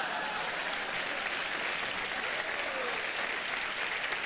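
Studio audience applauding in response to a punchline: steady, dense clapping with a voice faintly heard over it midway.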